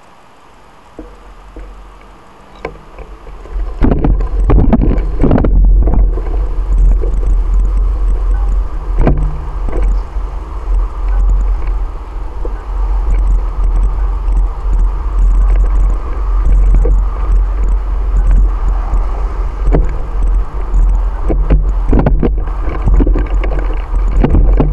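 Wind buffeting the microphone of a bicycle-mounted camera once the bike gets moving, about four seconds in: a loud low rumble with scattered knocks and rattles from the ride. Before that, a short quieter stretch with a few light knocks while the bike is stopped.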